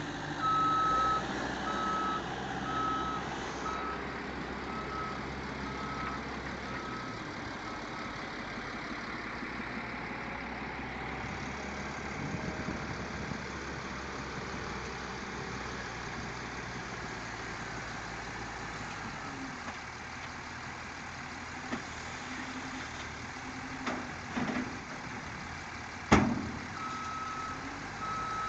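Caterpillar 906H compact wheel loader's diesel engine running steadily, its reversing alarm beeping for the first several seconds and again at the very end as the loader backs up. A sharp knock near the end is the loudest sound, after a few smaller knocks.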